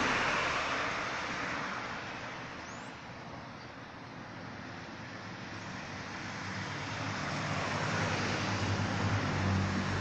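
Passing road traffic: one vehicle's noise fading away over the first few seconds, then another building up toward the end.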